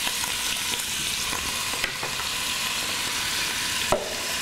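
Cubes of paneer cheese frying in hot ghee in a pot: a steady sizzle with small crackles as they brown. A single sharp knock near the end.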